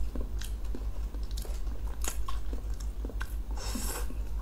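Close-up mouth sounds of a soft cheese stick snack being chewed and bitten: small wet clicks and smacks, with a brief sucking hiss near the end, over a steady low hum.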